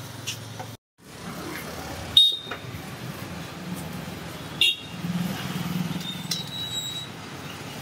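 Roadside street ambience with a steady traffic rumble, broken three times by short, sharp, high-pitched ringing sounds about two seconds apart.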